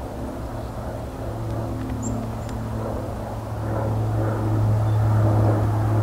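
Low, steady engine drone with a few fainter higher tones above it, growing louder from about four seconds in as it draws nearer.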